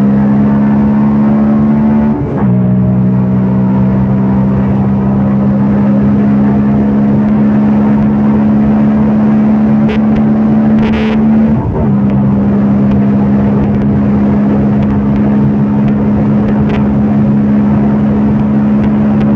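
CFMOTO Papio 125's single-cylinder four-stroke engine running at steady cruising revs. The engine note breaks briefly about two seconds in and again near the middle, settling at a slightly lower pitch after the second break, with a short hiss just before it.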